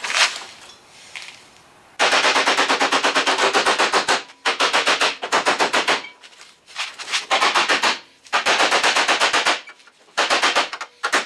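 Body hammer striking the steel sheet-metal quarter panel section in rapid, even runs of blows, five runs with short pauses between them, as the panel is worked into fit.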